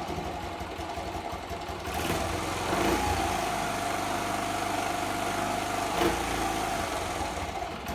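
A Honda C70's small single-cylinder four-stroke engine runs at a fast idle, a little louder from about two seconds in. It has just started for the first time after restoration, with the carburettor not yet set for a proper idle.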